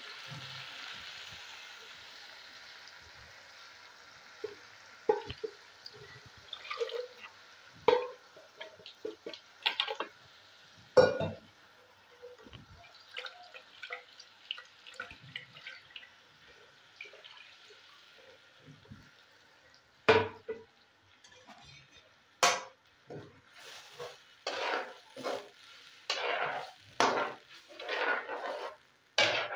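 Onions and ground masala sizzling in a metal karahi, then a metal spoon scraping and knocking against the pan as the mixture is stirred, the strokes coming thick and loud over the last ten seconds.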